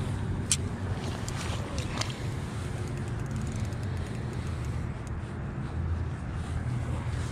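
Wind buffeting the microphone as a steady low rumble, with a couple of light sharp clicks about half a second and two seconds in.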